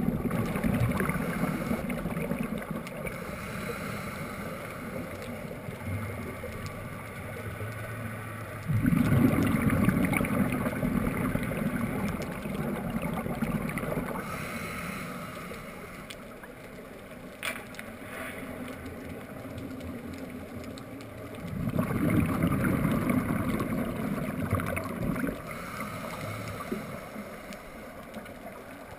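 Scuba diver's exhaled bubbles from the regulator rumbling and gurgling underwater in three bursts about twelve seconds apart, with quieter stretches between breaths.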